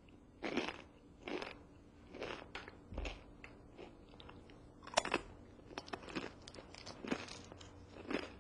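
A person chewing a crunchy tortilla chip: a steady run of crisp crunches, a little more than one a second, with one sharper crunch about halfway.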